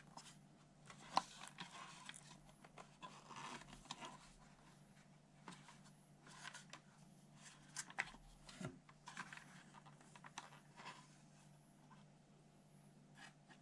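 Faint handling noise from a plastic toy radio-controlled Mazda RX-7 (FD3S) body being turned in the hands: scattered light clicks and soft scrapes of fingers on plastic, over a low steady hum.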